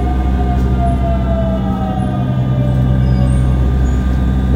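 Electric subway train's inverter whine sliding slowly down in pitch, over a steady low electrical hum from the train's equipment.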